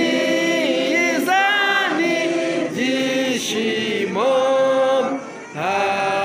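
Several voices singing together in long held notes, phrase after phrase, with a brief breath pause about five seconds in.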